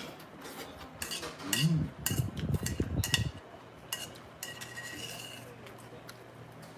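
Cutlery clinking and tapping against dishes during a meal, in scattered sharp clicks. About two seconds in comes a short burst of low, close noise, the loudest part.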